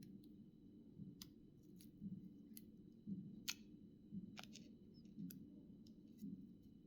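Faint, irregular sharp clicks and taps of small parts being handled while a mobile phone is taken apart, about one every half second to second. A low steady hum runs underneath.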